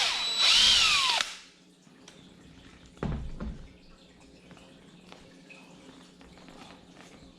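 Electric drill boring a hole into wood: its whine falls off, then comes back in a short burst that rises and falls in pitch and stops a little over a second in. A low knock follows about three seconds in.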